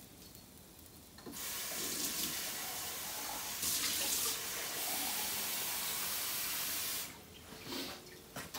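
Water running from a tap into a cup, a steady hiss that starts about a second in and is shut off near the end.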